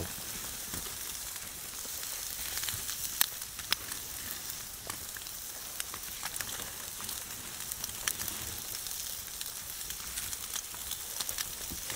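Bone-in ribeye steaks sizzling on a cast-iron grill grate over wood coals: a steady hiss with scattered sharp pops.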